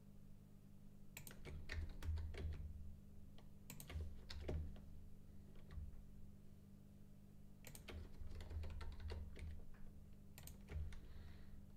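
Computer keyboard keys and mouse buttons clicking softly in short clusters, over a low steady hum.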